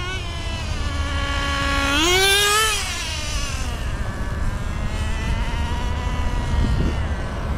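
A Traxxas Rustler 2.5 nitro RC truck's small glow engine being run in during break-in. It revs up to a high whine about two seconds in, then eases back to a steady whine that rises and falls a little with the throttle.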